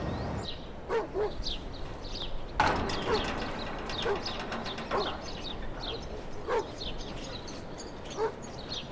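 A dog barking outdoors, short separate barks about once a second or a little less.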